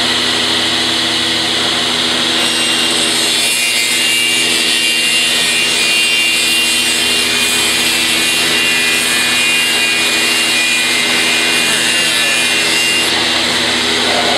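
A CNC machining centre's saw-blade head cutting through a wooden board: a steady high cutting noise with a whine, over the machine's constant hum. The cut starts about two seconds in and eases off shortly before the end.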